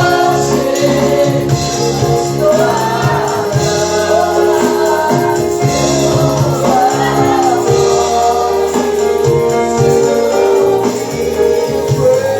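Gospel praise-and-worship music: voices singing together over sustained held chords, with tambourine and percussion keeping a steady beat.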